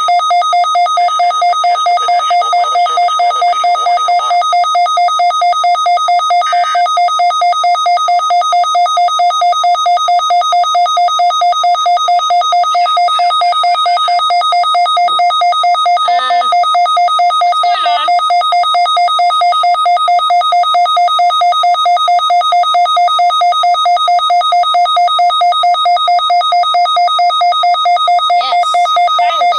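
Weather radio warning alarm sounding during its weekly test: a loud, steady electronic tone with two pitches, pulsing rapidly and without a break. It signals a receiver alert.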